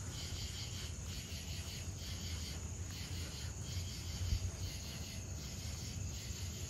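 Crickets chirping in a steady, pulsing chorus, over a constant low rumble.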